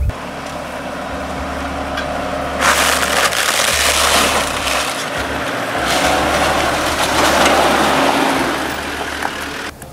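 Dry branches and brush crackling and snapping in a continuous crunching, with a low rumble underneath. It grows louder about two and a half seconds in and again around seven seconds.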